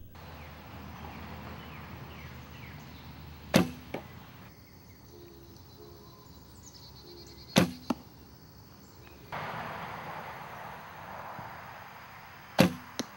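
Three arrows shot from a traditional wooden bow, each a sharp thump of the bowstring on release, followed a fraction of a second later by a softer knock as the arrow strikes a 3D foam target.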